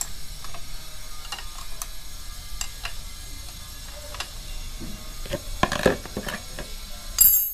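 Combination wrench working the oil strainer drain bolt loose on a Honda PCX160 scooter's crankcase: scattered light metallic clicks and ticks of the wrench on the bolt. There are louder knocks a little after the middle and a short, loud clatter near the end.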